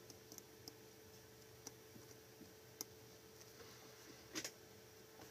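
Faint, scattered small metallic clicks of steel tweezers and parts touching a Rolex 3035 watch movement as its bridge is set in place, with a louder double click about four and a half seconds in. Between the clicks there is only quiet room tone.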